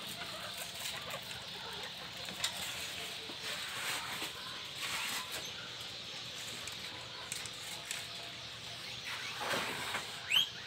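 Guinea pigs moving about with faint scattered rustles and light knocks, then one short squeak that rises in pitch near the end.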